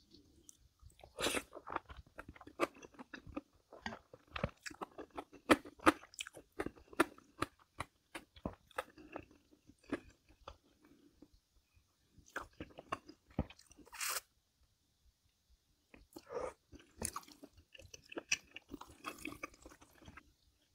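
A person chewing and crunching food: dense runs of crisp bites and chewing clicks, broken by two short pauses.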